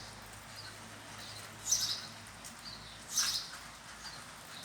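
A small bird chirping in short bursts, two main ones, over a steady faint hiss of falling rain.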